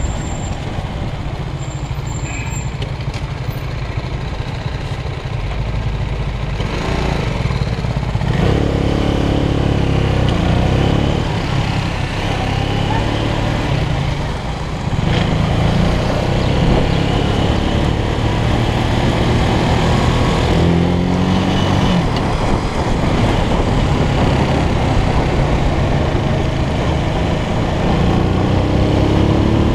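Motorcycle engine running at low road speed, heard from the rider's seat. Its note rises and falls a few times with the throttle.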